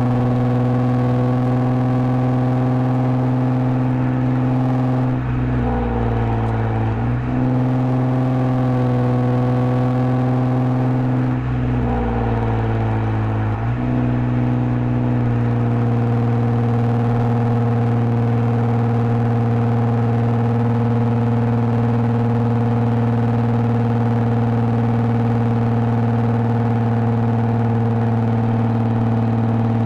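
2010 Lexus IS250's 2.5-litre V6 with an aftermarket full exhaust and valved mufflers, droning at a steady cruise. The note briefly drops in pitch, with a deeper rumble, twice: about five seconds in and again about eleven seconds in.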